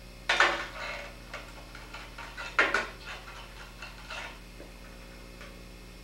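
Metal glassblowing tools clattering and clinking against a steel workbench. There are two louder clatters a little over two seconds apart, followed by a few lighter clinks.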